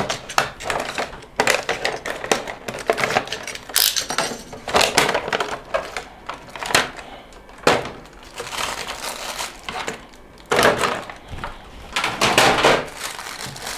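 Clear plastic blister tray and plastic bag crinkling and crackling in irregular bursts as they are pulled open by hand to free a small figure.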